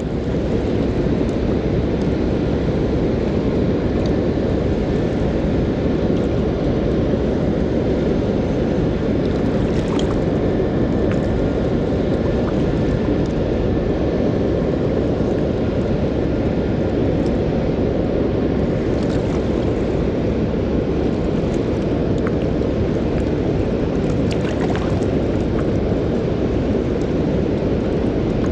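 Steady, loud roar of water pouring through a river dam spillway, deep and even without letting up.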